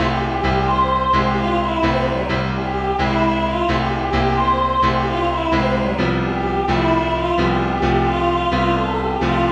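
Notation-software playback of the alto part of an SAB choir arrangement: a synthesized choir voice carries the alto melody over piano accompaniment, with chords struck about twice a second.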